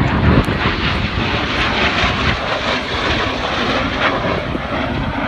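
Loud, steady jet engine noise from F-16 fighter jets in flight.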